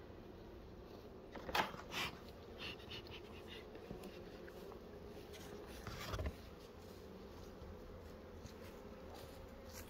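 Honeybees buzzing faintly around an open hive, a steady low hum, with a few short knocks and scrapes about one and a half seconds in and again about six seconds in.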